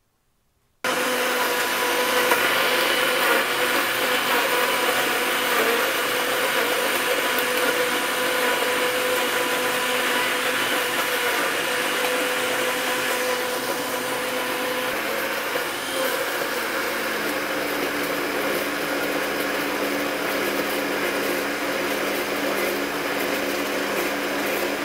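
Electric blender running at high speed, blending herbs, garlic, green chillies and raw mango with a little water into a chutney paste. The steady motor whine starts about a second in, shifts a little in pitch about two-thirds of the way through, and cuts off abruptly at the end.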